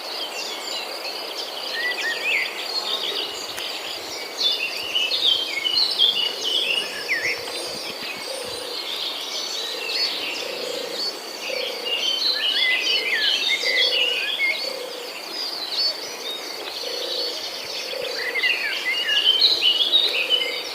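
Many wild birds chirping and twittering in quick rising and falling notes over a steady high insect drone. A soft low call repeats about once a second from about nine seconds in.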